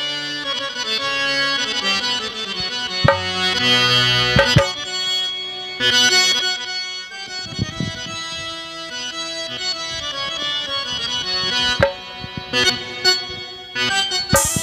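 Harmonium playing a slow, held melody, with a few sharp hand-drum strokes.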